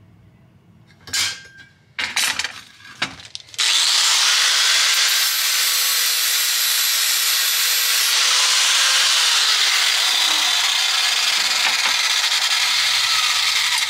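A few sharp knocks of steel parts being handled, then about three and a half seconds in an angle grinder starts cutting into the steel of a seat slider rail and runs steadily and loudly for the rest of the time.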